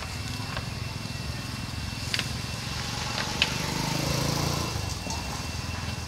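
A motor vehicle's engine running with a steady low drone that swells louder about four seconds in, as it revs or passes. Two sharp clicks are heard, about two and three and a half seconds in.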